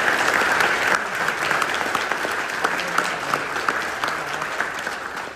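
Audience applauding, many hands clapping, fading away gradually toward the end.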